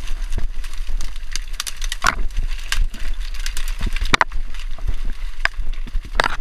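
Dry reed and grass stalks rustling and crackling as they are pushed aside by hand, with four louder snaps and swishes spread through, over a steady low rumble.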